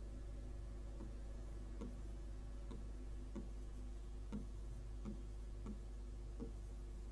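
Stylus tapping and clicking against an interactive touchscreen board while writing, about nine faint, irregular ticks, over a steady low electrical hum.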